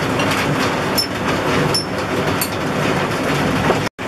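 A metal spoon clinking a few times against a glass jar as chopped toona leaves are spooned in, over a steady background noise. The sound drops out briefly near the end.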